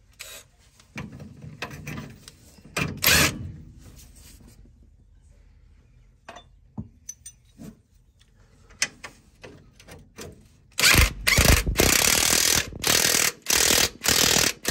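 Socket ratchet wrench tightening the lower mounting nut of a new front shock absorber: scattered clicks and rattles at first, then a run of loud ratcheting strokes with short pauses between them in the last few seconds.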